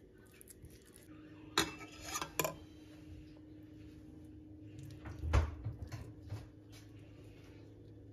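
Metal spoon clinking against a stainless steel mixing bowl of meat filling, a few sharp clatters in the first half and a louder knock with a dull thud about five seconds in.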